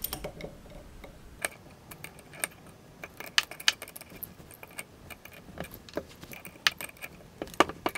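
Scattered light metallic clicks and clinks of a wrench working on brass pneumatic push-in fittings as they are tightened into the ports of an air-cylinder power drawbar.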